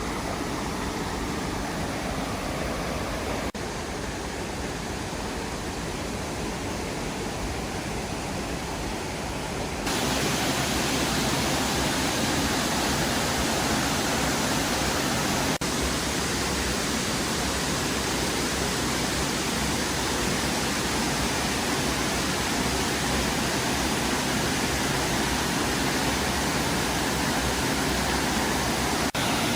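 Steady rushing of a waterfall, getting louder and brighter about ten seconds in.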